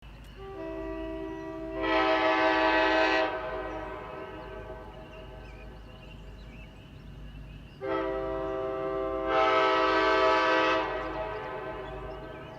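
Nathan Airchime 'Big Bore' K5LA five-chime air horn from a 1980 Amtrak locomotive, blown in two long blasts about five seconds apart. Each blast swells louder and fuller partway through, then a long echo dies away after it.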